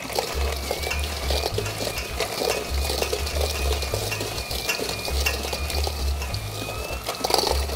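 Electric hand mixer running, its whisk beaters churning soft butter, sugar and egg in a stainless steel bowl: creaming the cookie dough base. A steady high motor whine sounds under the beaters rattling and scraping against the metal bowl.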